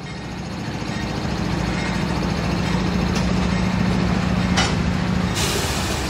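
Norfolk Southern GE AC44C6M diesel-electric locomotive passing close by, growing louder with a steady low engine drone. Near the end the drone gives way to a rush of wheel-on-rail noise as tank cars roll past.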